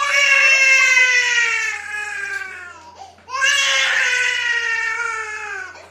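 A young child crying in two long wails, each slowly falling in pitch, with a short break about halfway through, upset by a warm salt-water nasal rinse.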